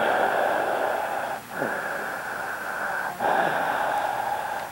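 A person breathing heavily with a rasping wheeze, in three long breaths of about a second and a half each, with short breaks between them.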